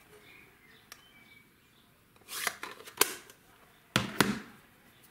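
Paper and craft supplies being handled on a work mat: short rustles of paper and a few light taps and clicks as things are picked up and set down, mostly in the second half.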